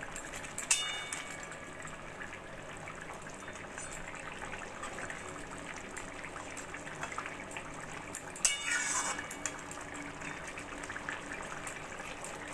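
Metal spatula stirring fish and vegetable curry in a metal wok: the curry simmers steadily under scattered scrapes and clinks of the spatula on the pan. The loudest clinks come about a second in and about eight and a half seconds in.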